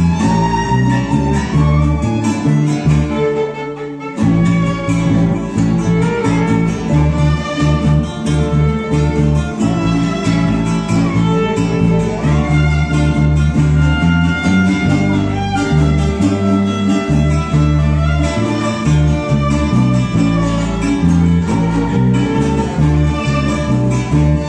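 Venezuelan string ensemble playing a vals: violin over two cuatros, guitar and bass, with a steady bass pulse and a brief break about four seconds in.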